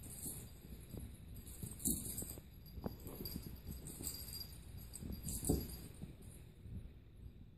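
A small bell jingling in short bursts several times as a kitten pounces and plays with a wand toy on carpet, with soft bumps and rustles; the loudest jingles come about two seconds in and again about five and a half seconds in.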